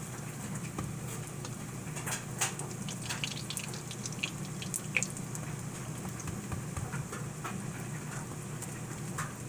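Potato pancakes frying in hot oil in a pan: a steady sizzle with frequent small, scattered pops and crackles.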